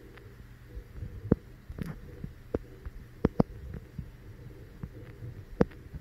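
Irregular dull knocks and clicks, about a dozen, with a few louder ones near the middle and near the end, over a faint low hum: handling noise from fingers on a handheld phone.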